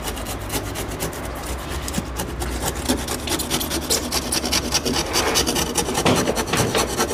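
Handsaw cutting back and forth down the joint between an old oak post and a new green oak rail, a steady rasping of teeth through wood. It is easing the joint: sawing the gap even so the new timber can be tapped up tight.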